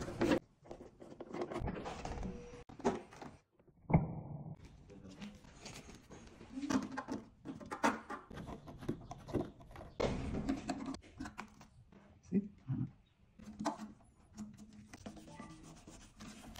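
Quiet, scattered handling sounds from work on a motorcycle's fuel tank panels: small clicks and taps, the rustle of vinyl sticker backing being peeled and laid on, and rubbing. The sounds start and stop abruptly several times.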